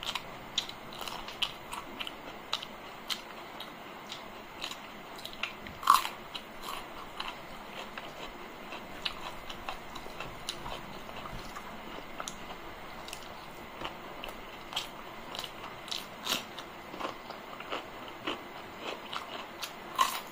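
Close-up eating sounds of a person eating rice and curry by hand: wet chewing, lip smacks and many small mouth clicks, with one louder click about six seconds in.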